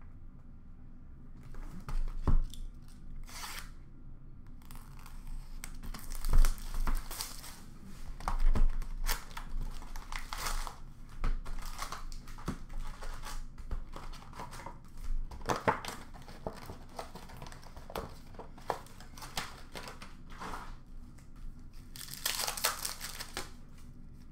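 Upper Deck hockey card pack wrappers being torn open and crinkled by hand, in irregular rips and rustles with a longer, louder tear near the end.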